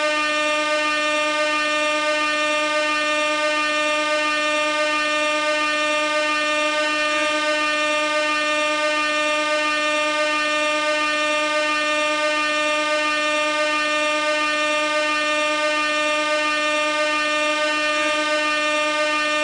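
Compressed-gas air horn sounding one continuous blast, a single steady note with many overtones, held without a break.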